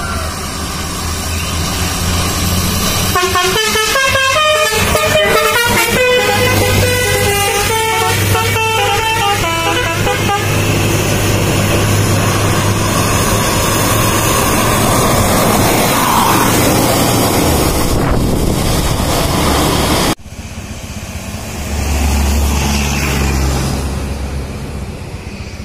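A bus's multi-note musical air horn plays a quick run of changing notes as the bus approaches. Its engine and tyres on the wet road grow louder as it nears. After a sudden cut, another bus's engine rumbles as it pulls away.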